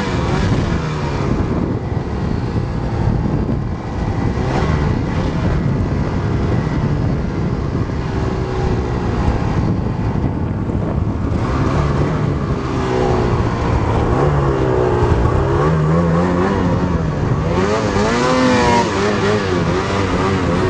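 Snowmobile engine running hard in deep snow, its pitch rising and falling as the throttle is worked, with a few quick revs climbing higher near the end.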